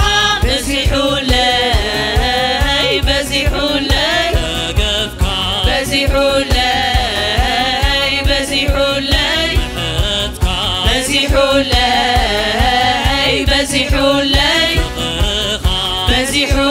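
Tigrinya gospel worship song performed live, with a sung melody over a steady drum beat.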